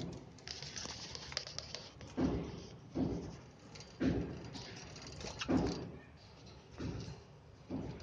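Caged cockatiels and budgerigars calling: a low call repeated about once a second, with high chattering in between.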